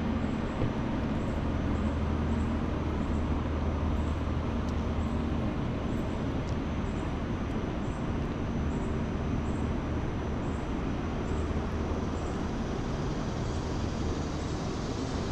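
Steady street ambience: a low, continuous engine-like hum with road traffic noise. A faint high ticking repeats about twice a second throughout.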